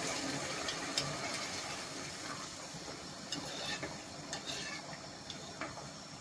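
Metal spoon stirring rice in a non-stick pot of just-added hot water, with light scrapes and ticks against the pot over a steady hiss of the hot liquid that slowly fades.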